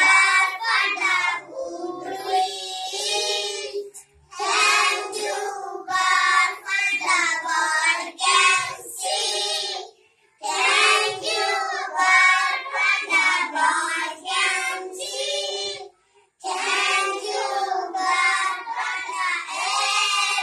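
A group of young children singing an English morning prayer together, in four sung lines with brief pauses between them.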